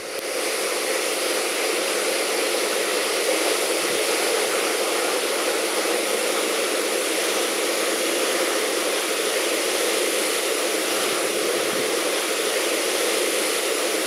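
Water rushing steadily: a jet discharging from the dam's outlet works and plunging into the pool at the foot of the wall, a constant hiss without let-up.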